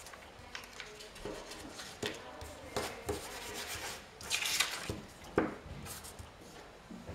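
Glue stick rubbed across paper while paper cutouts are handled and pressed flat by hand: irregular rubbing strokes, with a louder scrape about four and a half seconds in and a sharp tap just after.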